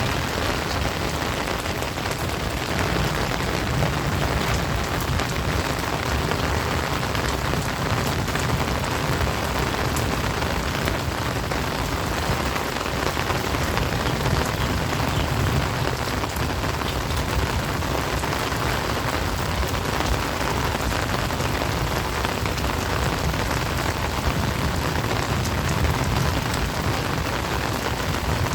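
Heavy rain pouring steadily, a dense even hiss of drops with fine pattering ticks.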